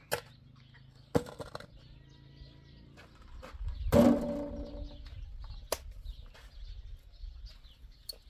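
Outdoor village ambience with small birds chirping faintly throughout and a few sharp knocks. The loudest sound is a rumbling swell about four seconds in, lasting around a second.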